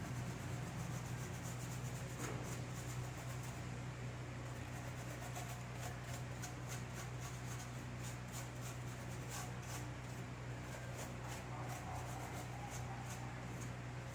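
Cleaning a keyboard: short scratchy rubbing strokes, several a second, over a steady low hum.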